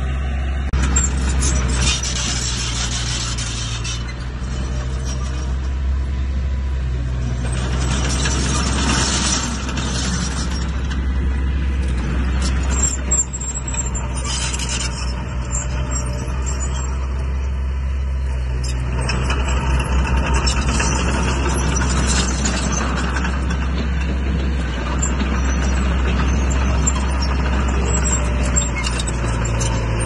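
Heavy diesel earthmoving machinery running steadily with a constant low engine drone. Several spells of hissing, scraping noise rise over it a few seconds apart.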